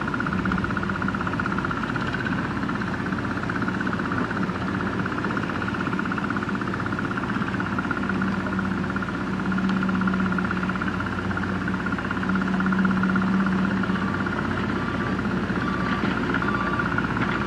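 Komatsu PC78US excavator's diesel engine running steadily while the machine works, with a steady high whine alongside it. The engine note swells twice, about halfway through and again a few seconds later.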